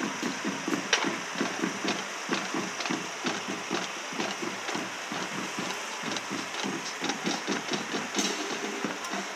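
Marching band drumline playing a marching cadence: a steady run of drum beats with sharp stick clicks. A car engine runs faintly underneath.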